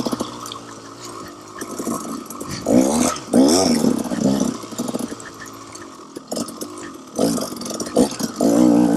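KTM 300 XC-W two-stroke single-cylinder dirt bike engine revving in bursts, rising and falling in pitch as the throttle is worked, with quieter off-throttle stretches between. The loudest bursts come about three seconds in and again near the end.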